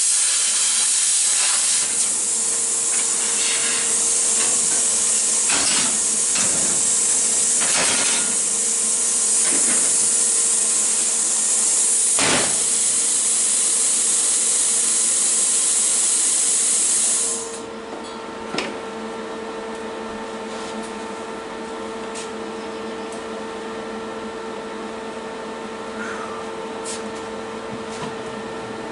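Plasma cutter cutting 14-gauge sheet steel: a loud, steady hiss with a few sharp crackles. The hiss cuts off abruptly about 17 seconds in, leaving a quieter steady hum with a faint held tone.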